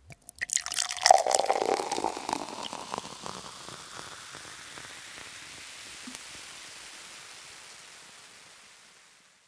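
A fizzy drink poured into a glass. It splashes and crackles for the first few seconds, loudest about a second in, then settles into a steady hiss of bubbles that slowly fades out.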